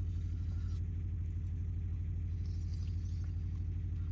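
Steady low throbbing drone of an engine running, with a fast, even pulse and no change in speed.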